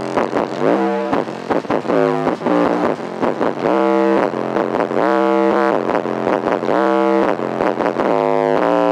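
Bass-heavy music played loud through a car's trunk-mounted subwoofers in a ported box, with deep, repeating bass notes in a steady rhythm.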